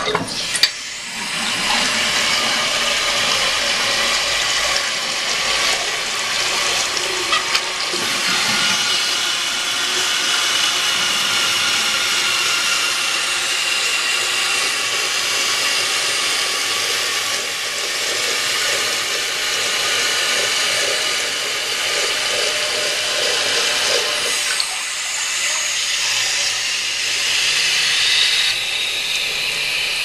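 Eljer Emblem toilet flushing: water rushes out of the tank, then the Coast float-ball ballcock hisses steadily as it refills. About 25 seconds in, the lower rushing drops away, leaving a thinner, higher hiss of the tank still filling.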